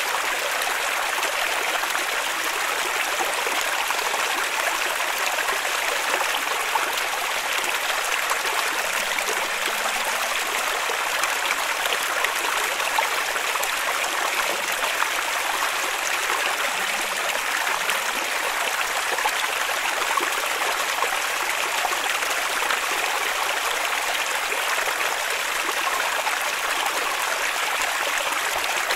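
Small rocky stream running over boulders in little cascades: a steady, even rush and splash of water, bright rather than deep, with no change over time.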